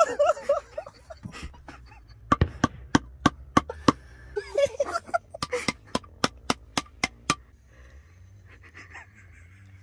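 A wooden board knocking repeatedly against the nail loads in a pepperbox pistol's barrels, tapping the sabot-mounted nails down during loading. The knocks are sharp and come about three a second for several seconds, then stop.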